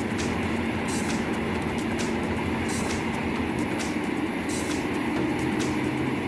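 Heavy machinery running: a steady engine drone with irregular short, sharp ticks and cracks over it.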